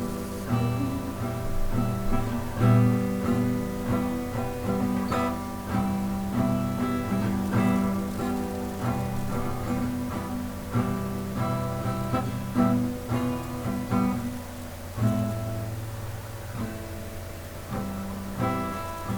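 Instrumental music led by plucked acoustic guitar, notes and strummed chords over a low bass line.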